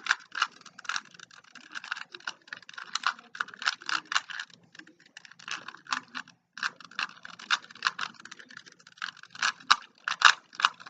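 A 3x3 Rubik's Cube being turned quickly by hand during a solve: rapid runs of plastic clicks and rattles from the layers snapping round, with a brief pause about six seconds in.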